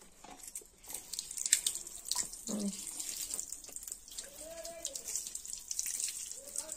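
Tap water running over a bunch of coriander leaves rinsed by hand, splashing into a steel bowl below.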